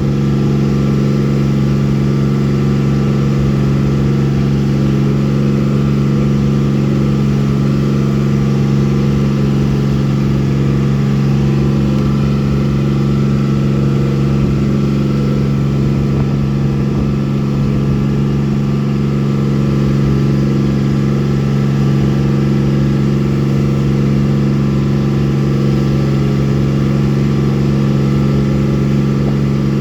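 Boat engine running at a steady speed, a constant low drone with no change in pitch or level.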